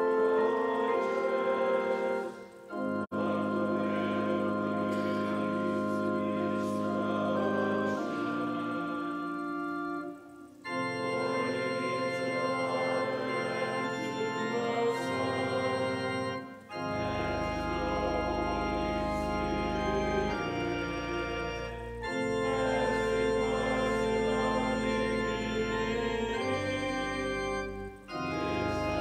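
Church organ playing held chords in phrases with short breaks between them. A deep bass comes in about halfway through.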